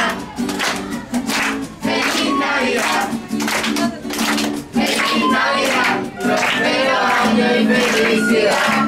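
A group singing a Christmas song to a strummed acoustic guitar, with children clapping along in time.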